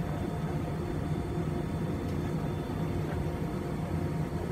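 Steady cabin hum of an Airbus A320 taxiing, with its engines at low taxi power: an even low drone carrying a few faint steady tones.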